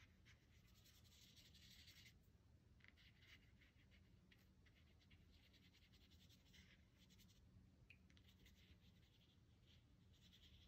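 Faint, short scratchy strokes of a watercolour brush on paper, with brief pauses, over a low steady room hum.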